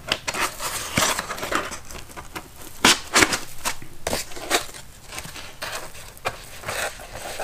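Packaging being handled: rustling and crinkling with irregular clicks and knocks, as a heavy electronics box is put back into its box and packing.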